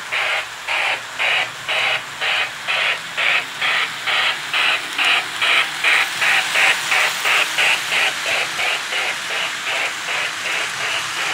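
Lionel O scale steam locomotive's electronic chuffing sound, a steady rhythm of about three chuffs a second, a little louder in the middle as the engine runs the layout.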